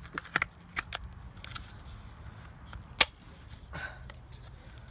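Tomahawk head being pushed into its snug molded plastic sheath and the sheath's snap closure fastened: a run of sharp plastic clicks and rattles in the first second and a half, then one loud single snap about three seconds in, followed by a few softer clicks.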